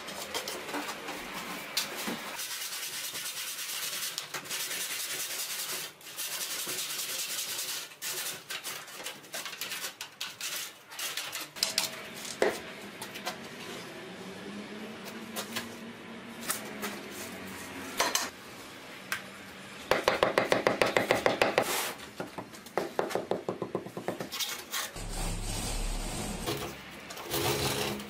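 Hard scraping and knocking of lightweight concrete blocks being handled and fitted into place, with long scrapes early on, scattered knocks, and a burst of rapid rasping strokes about two-thirds of the way through.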